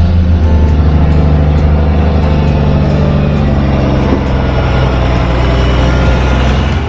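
New Holland tractor's diesel engine running loudly and steadily, its pitch shifting slightly about a second in.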